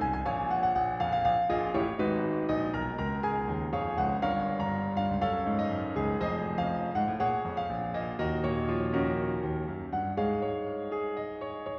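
Background music: a solo piano arrangement playing a flowing melody over chords.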